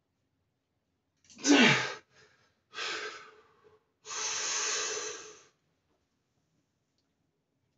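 A man's loud, strained vocal exhale from exertion under a heavy barbell squat, falling sharply in pitch, about a second in. It is followed by two heavy, breathy exhales, the second longer.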